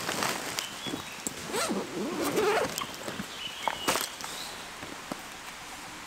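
A camera backpack being opened and a camera taken out on dry leaf litter: rustling and scraping of bag fabric and leaves, with a few sharp clicks, the loudest about four seconds in.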